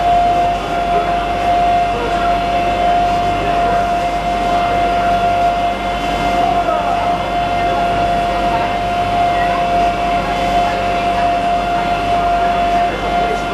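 Friendship boat's motor running steadily under way, with one constant high-pitched whine over the engine noise.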